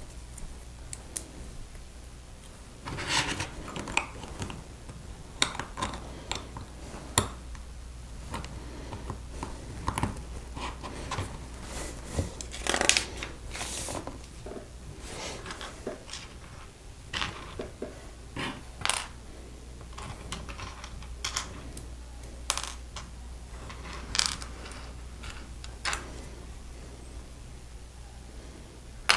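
Plastic Lego bricks clicking and clattering as pieces are picked out and snapped together, in irregular sharp clicks and short rattles over a steady low hum.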